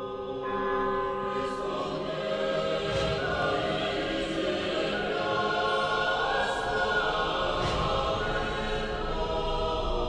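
Choral theme music: a choir singing a slow chant over ringing church bells, with several bell strokes spaced a second or more apart.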